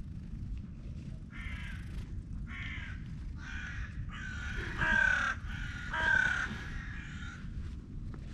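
Crows cawing in a run of about seven calls, starting just over a second in and stopping near the end, over a cat's steady low purring.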